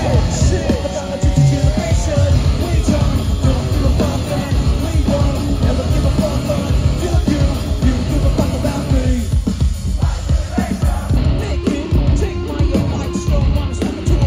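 Nu-metal band playing live at full volume, with yelled and sung vocals over the band.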